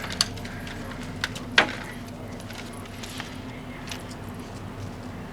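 A few separate metallic clinks and jingles, the sharpest about a second and a half in, over a steady low hum.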